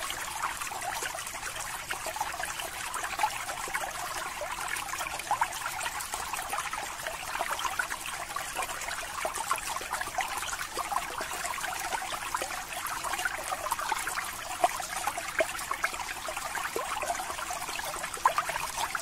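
Aquarium water trickling and bubbling steadily, a dense patter of small pops and splashes with no let-up.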